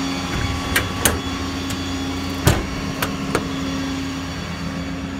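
Several sharp knocks and clicks of a truck service-bed compartment door being handled and shut, the loudest about two and a half seconds in, over the steady mechanical drone of the running service truck's equipment.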